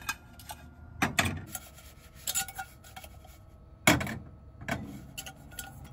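A frying pan knocking and clinking against a gas stove's grate as tortillas are tossed and warmed in it: a handful of sharp knocks, the loudest about four seconds in.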